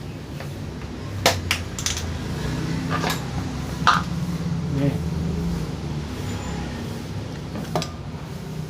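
About half a dozen sharp metallic clinks and clicks, the loudest about a second in and about four seconds in, over a steady low hum. They fit the parts of a Cosmos electric fan with a seized shaft being handled.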